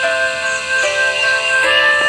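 Instrumental background music: a slow melody of held notes that changes pitch about every second.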